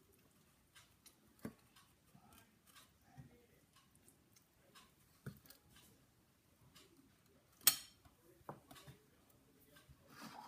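Scattered light taps and clicks of kitchen handling around a plastic blender jar, with one sharp click about three quarters of the way through.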